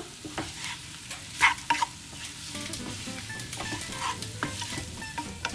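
Spatula stirring and scraping beef pieces around a non-stick frying pan, the oil sizzling under them as the beef is dry-fried. A couple of louder scrapes come about a second and a half in.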